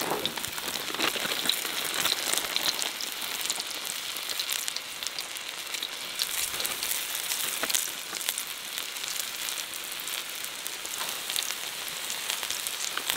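Breaded walleye pieces deep-frying in hot oil in a cast-iron pan: a steady sizzle full of crackling.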